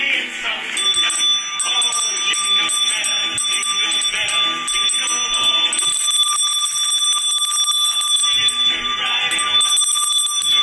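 Small metal handbell shaken hard and ringing without pause, a steady bright jangle.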